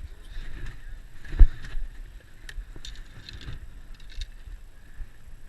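Steady low rumble of wind and water with scattered small clicks and knocks, and one loud sharp thump about a second and a half in.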